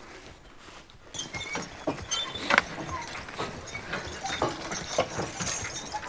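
Draft horses' hooves and a horse-drawn wagon's clatter, starting about a second in: irregular knocks and rattles as the team moves off.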